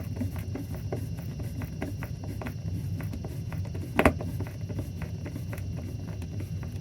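Light irregular clicks and taps of hands working with a terminal block and its wiring hardware, with one sharper knock about four seconds in, over a steady low hum.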